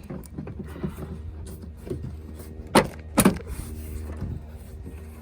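Plastic interior door trim panel being pushed and knocked onto a car door, its metal retaining clips clicking and the panel knocking against the door, with the two loudest knocks close together near the middle. A steady low hum runs underneath.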